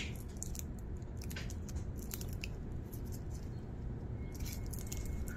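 Blue plastic protective film on a steel watch bracelet crinkling and rustling as fingers handle and peel at it: short, scattered crackles over a steady low background noise.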